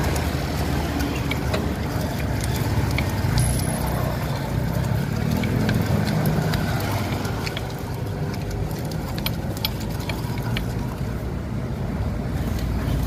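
A pestle grinds and scrapes peanut sauce in circles around a wide, flat stone mortar (cobek), a gritty scraping with many small clicks. Under it runs a steady low rumble of street traffic.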